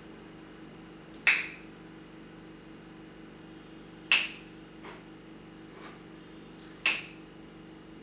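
Zippo lighter's metal lid snapping open and shut: three sharp metallic clinks with a brief ring, about three seconds apart, with a few fainter clicks between the second and third.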